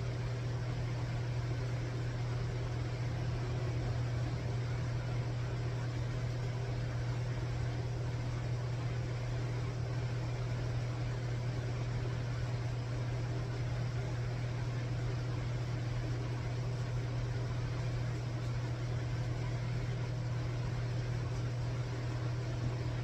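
A steady low machine hum under a constant hiss, unchanging in pitch and level.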